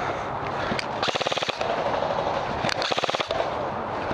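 Airsoft rifle firing two short full-auto bursts of rapid, evenly spaced clicks, each about half a second long, about a second in and again about three seconds in.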